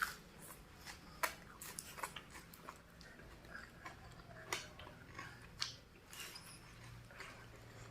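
A person chewing and biting into crunchy raw vegetables close to the microphone: irregular crisp crunches and wet clicks with short gaps between them.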